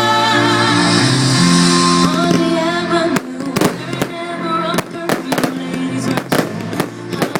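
Fireworks going off over music with a held melody: from about three seconds in, an irregular string of sharp bangs, several a second.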